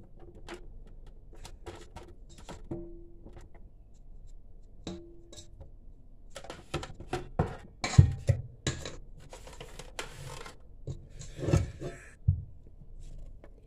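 Handling a stand mixer after kneading: scattered clicks and knocks of the dough hook and stainless steel bowl, with short bursts of scraping, and a loud knock about eight seconds in.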